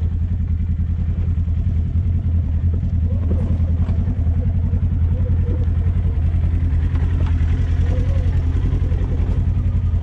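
Polaris RZR 1000 side-by-side's engine running steadily at low revs while the machine crawls down a steep dirt trail, a deep even drone with no revving. Faint voices come through in the middle.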